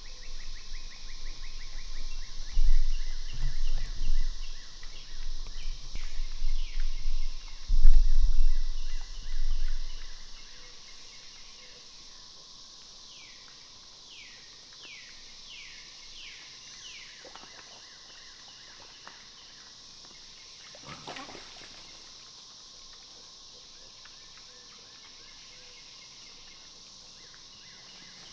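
Outdoor ambience: a steady high insect drone with birds calling, including a quick run of short downward-sweeping notes in the middle. Low rumbling comes and goes during the first ten seconds and then fades out.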